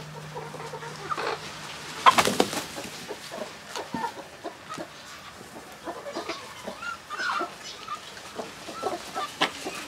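A flock of chickens clucking, with short calls scattered throughout and one louder outburst about two seconds in.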